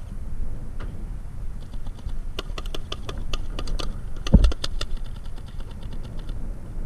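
Rapid, irregular volley of paintball marker shots, a crackle of sharp pops starting about one and a half seconds in and stopping near the end, with one heavy thump about four and a half seconds in. Wind rumbles on the microphone.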